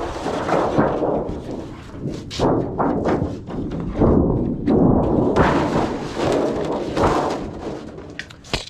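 Thin aluminum sheet being handled and worked on a sheet-metal brake: a series of thuds and rumbling, wobbling sheet-metal noise with a few sharp knocks.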